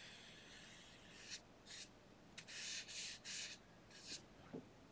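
Faint soft swishes of a wide flat watercolour brush stroked across sketchbook paper: about six strokes, mostly short, two of them longer, as a darker wash is laid on.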